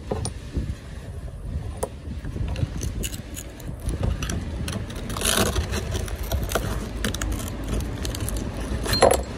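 A metal pry tool scraping and levering broken mirror glass out of a plastic mirror housing, with sharp clicks and clinks of glass shards and a longer scrape about five seconds in. Wind rumbles on the microphone throughout.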